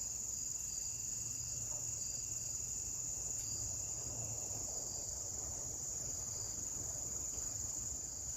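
Steady high-pitched chorus of crickets and other insects, with faint chirps repeating through it.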